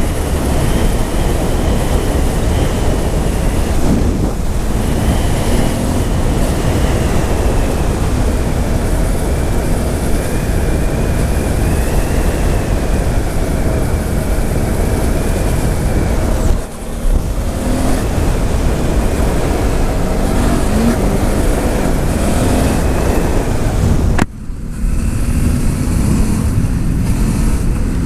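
Vehicle travelling along an unpaved off-road track: a steady loud rumble of engine and road noise, with the engine pitch drifting up and down. The sound breaks off briefly twice, once past the middle and once near the end.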